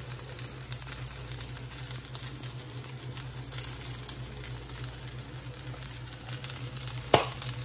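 Rice frying quietly in a carbon-steel wok over a gas flame, with faint scattered crackles over a low steady hum. A single sharp knock near the end, a metal spatula striking the wok.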